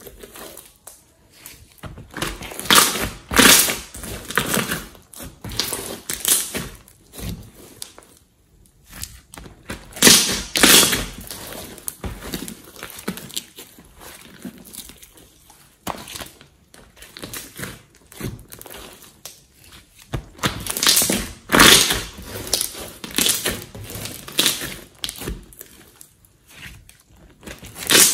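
A large mass of glossy slime squished, kneaded and stretched by hand: wet squelches and crackles in irregular bursts, loudest about ten seconds in and again about twenty-one seconds in.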